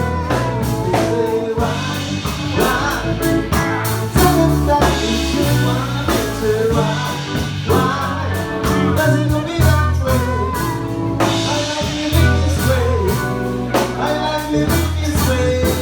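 A live band playing: a bass line and drum kit keeping a steady groove, with a melody line over them.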